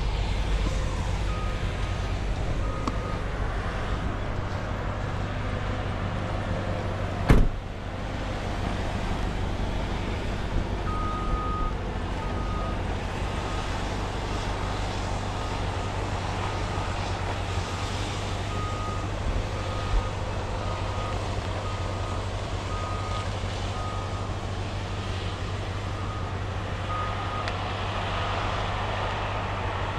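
Cat 568 shovel logger's diesel engine running steadily, with an alarm beeping in short beeps about once a second for much of the time. A single sharp knock about seven seconds in.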